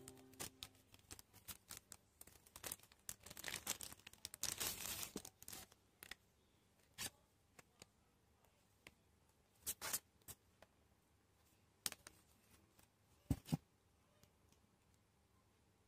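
Clear plastic packaging handled by hand: faint, irregular crinkling and clicking, a busier run of rustling in the first five seconds, then a few separate clicks and taps.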